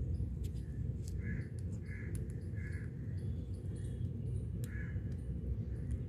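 Rose-ringed parakeets (Indian ringnecks) giving short harsh calls: several in quick succession about two seconds in and another near five seconds, with sharp clicks in between, over a steady low rumble.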